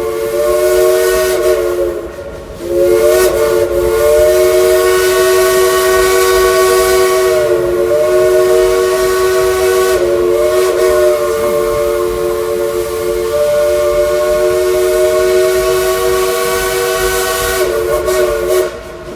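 Original Southern three-chime steam whistle on steam locomotive #192 blown in long held chords, with a short break about two seconds in and a few brief dips and wavers where the valve is eased, over a steady hiss of steam. It cuts off just before the end.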